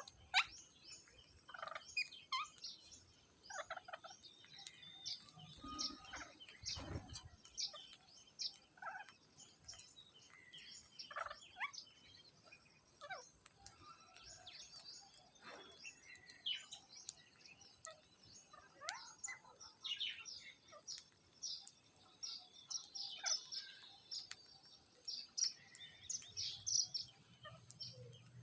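Parrots chirping and giving short squawks, scattered irregular calls of varied pitch.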